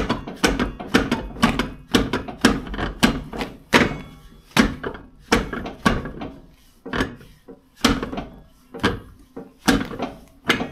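Repeated clunks and knocks, about two a second at first and a little slower later on, as a Trabant 601 front wheel and its brake drum are wrenched back and forth on the hub. The drum won't come free: it is stuck fast, rusted on, with the brake shoes clamping it.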